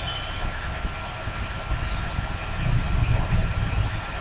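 A steady, engine-like low rumble that swells and fades unevenly, growing louder near the end, with a faint steady whine and hiss above it.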